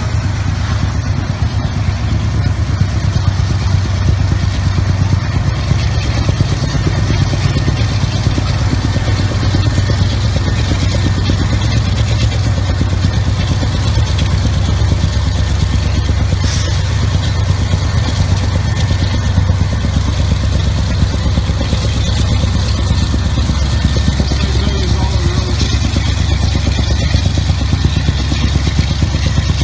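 GE AC44CW diesel-electric locomotive's V16 engine working hard as it passes, a loud steady low rumble. It is running rich and blowing black smoke, which the uploader puts down to its turbochargers not working.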